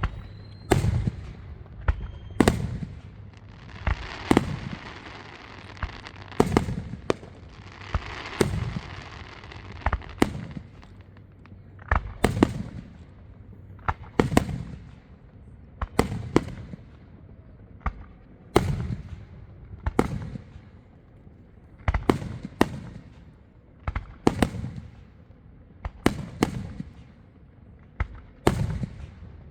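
Aerial fireworks show: a steady run of sharp shell bursts, one every second or so, each with a low boom trailing after it, and a stretch of crackling a few seconds in.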